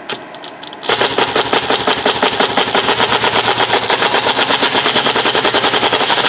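Impact driver hammering rapidly and steadily on a socket fitted over a rusted, seized brake bleeder in a brake caliper, working to break it loose. It starts about a second in, after a few light clicks.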